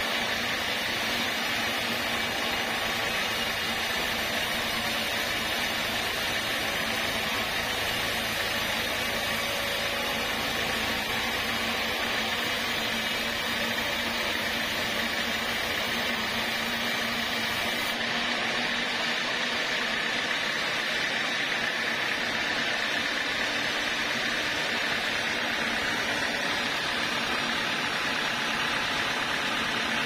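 Band sawmill running steadily, its blade sawing boards from a log of kayu merah jawa (Javanese red wood).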